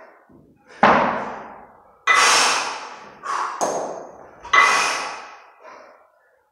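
A pair of 32 kg kettlebells knocking heavily during long cycle (clean and jerk) reps: about five sudden knocks, each trailing off over about a second.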